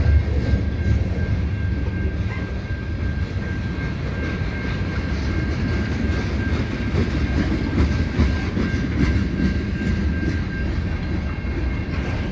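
Freight train's tank cars and covered hoppers rolling past: a steady low rumble of wheels on rail, with a thin steady high tone over it.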